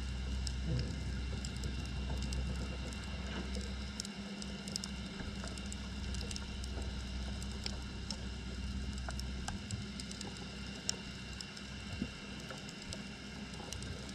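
Underwater sound picked up by a GoPro camera in its waterproof housing on the seabed: a steady low hum with a faint crackle of scattered clicks. The hum weakens about two-thirds of the way through.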